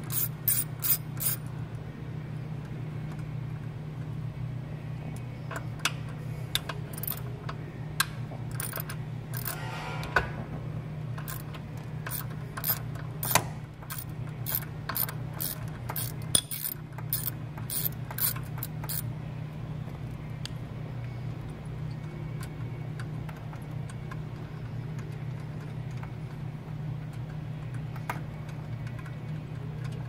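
Hand ratchet clicking as the 10 mm bolts holding a C5 Corvette's stock shifter base to the shift box are undone: a quick run of clicks at the start, then scattered clicks through the middle, over a steady low hum. The last third holds mostly the hum.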